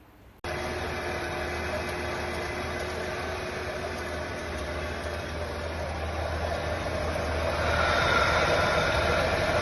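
Engine of a 1973 Chevrolet Bel Air running while still in the car. It cuts in suddenly about half a second in, runs steadily, and gets somewhat louder about eight seconds in.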